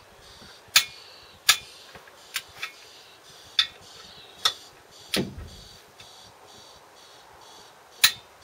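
Sharp metallic clicks from a torque wrench as the Land Rover Series 3 clutch pressure plate bolts are tightened to 25 lb ft, about eight single clicks at irregular intervals.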